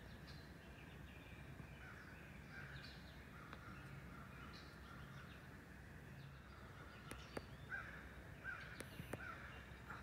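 Faint wild birds calling and chirping at scattered moments, with a few soft clicks in the second half.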